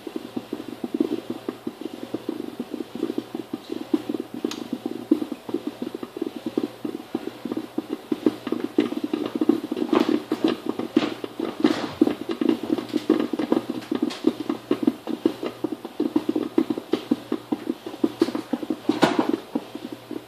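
Drip coffee maker brewing: a steady, rapid bubbling and gurgling as the hot water sputters through the machine, with a few sharper pops and clicks in the middle and near the end.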